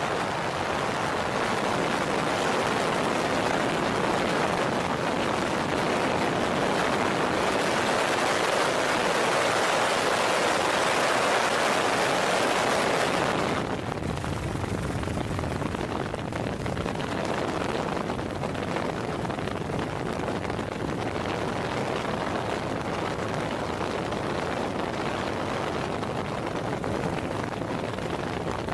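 Steady rushing roar of floodwater pouring through a dam's open spillway gates. About 14 seconds in it changes abruptly to a duller, lower rush.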